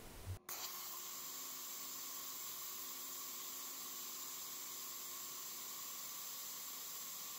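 Steady hiss with a faint even hum from a diode laser cutter's air assist and fan while the laser cuts a jigsaw pattern through a turning oak cylinder on rotary rollers. It starts about half a second in.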